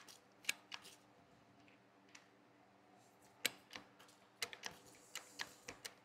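Faint, scattered small clicks from handling a hand-held hydraulic crimping tool as a cable end is set in its die: a few near the start, a pause, then a quick irregular run of clicks over the last couple of seconds.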